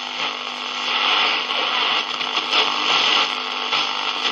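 Shortwave static hissing from a 1950 HMV C13C valve radio's loudspeaker, tuned to the shortwave band, over a steady low hum. The hiss swells louder about a second in and rises and falls after that.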